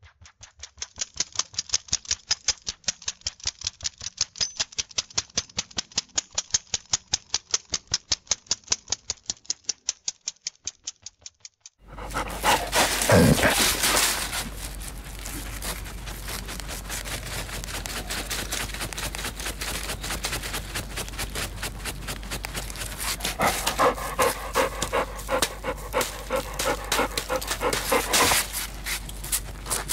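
A dog scratching itself with its claws: rapid, rhythmic scratching strokes at about five a second. About twelve seconds in, a second recording of scratching takes over, denser and with a low hum beneath.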